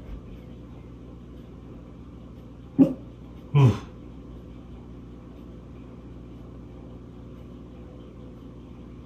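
Two barks from a small cavapoo dog about a second apart, the second longer and dropping in pitch, over a steady low hum.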